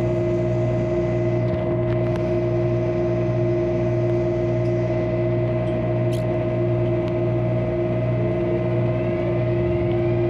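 MTR Airport Express CAF electric train with a steady multi-tone electrical hum. Near the end a faint rising whine from the traction drive sets in as the train begins to accelerate.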